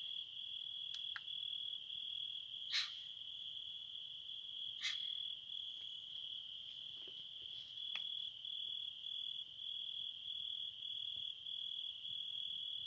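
Crickets trilling steadily in the night, a high, even, pulsing chirr. A few short, faint sharp sounds stand out over it, the clearest about three and five seconds in.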